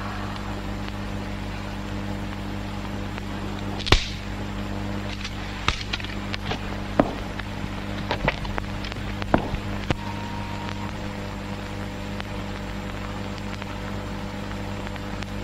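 Steady low hum of an old film soundtrack, with scattered sharp clicks and knocks, the loudest about four seconds in and most between five and ten seconds in.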